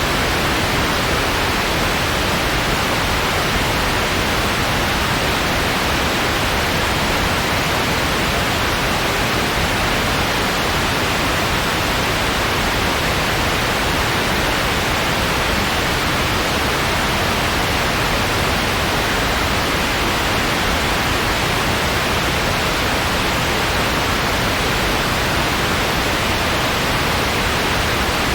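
Steady, unchanging white-noise hiss, a smooth even rush with no crackles or rhythm.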